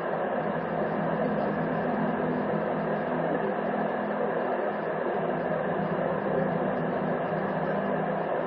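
Steady hiss with a low hum from a Ring doorbell camera's microphone, without any distinct sound standing out.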